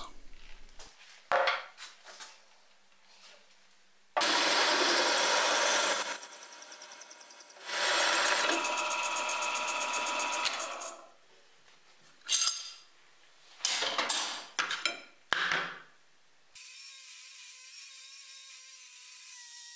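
A drill press boring into steel plate in two long loud passes, with a rising high whine between them, then a few short bursts of cutting. Near the end an angle grinder cuts through a steel rod with a steady sound.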